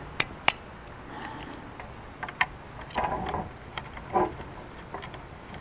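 Handling noise from fitting wires and connectors into a Ryobi miter saw's plastic handle housing: two sharp plastic clicks just after the start, then scattered small clicks and brief scraping and rustling.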